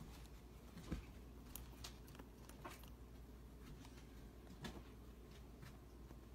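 Near silence with a handful of faint, sharp clicks and taps, the clearest about a second in, from a baby great horned owl being hand-fed whole mice with metal forceps.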